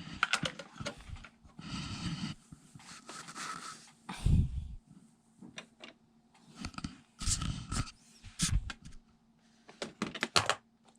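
Plastic doll toys and playset pieces being handled: scattered clicks, knocks and scrapes, with a heavier thump about four seconds in.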